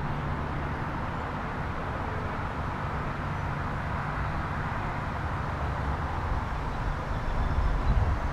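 Steady outdoor background noise with a faint low hum, and wind buffeting the microphone more strongly near the end.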